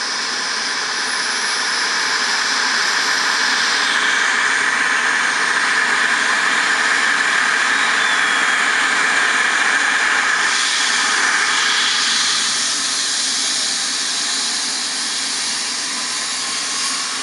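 Eurocopter EC135 air ambulance helicopter running on the ground with its twin turbine engines and rotor turning before lift-off: a steady turbine whine over a rushing hiss.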